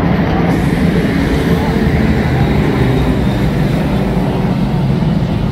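Several street stock race cars racing on an oval, their engines running loud and steady in a continuous mixed drone as the pack goes by.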